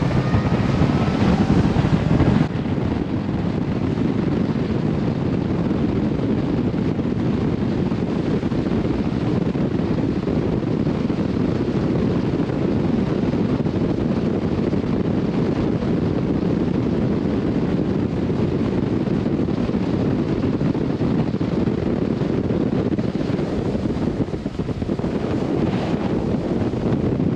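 Steady rush of wind on the microphone and water along the hull of a bass boat running fast, with no clear engine note standing out.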